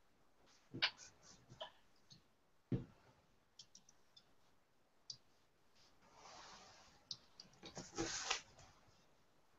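Faint scattered clicks and knocks over an open microphone on a video call, with a short louder rustle about eight seconds in.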